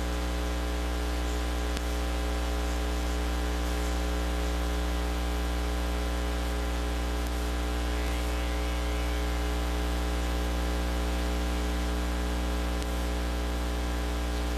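Steady electrical mains hum with a stack of overtones and constant hiss, on the soundtrack of a silent home-movie film transfer; it cuts off suddenly near the end.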